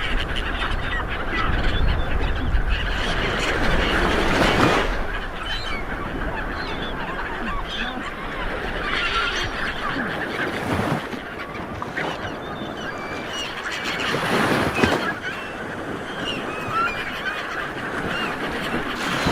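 Sea water washing, swelling in surges every four to six seconds, over a dense chatter of many short calls.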